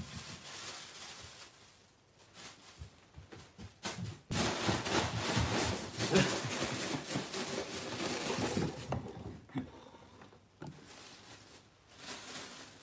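Thin plastic bag rustling and crinkling as it is swung about, loudest for about five seconds in the middle.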